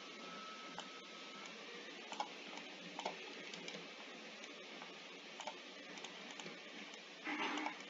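Sparse, sharp computer mouse clicks, a second or so apart, over a steady background hiss, with a louder brief noise near the end.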